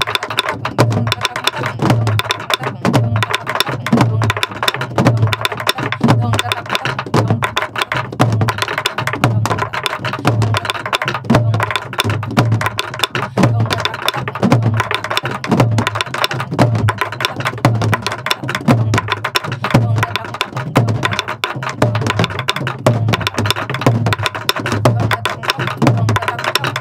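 A group playing sorigbuk, the Korean pansori barrel drum, in unison in the fast, regular four-beat hwimori rhythm: deep palm strokes on the drumhead alternate with sharp stick clicks on the wooden shell, several hits a second.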